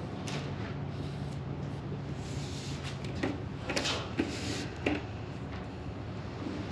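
Lines being drawn on paper: a few short scratching strokes with pauses between, over a low steady hum.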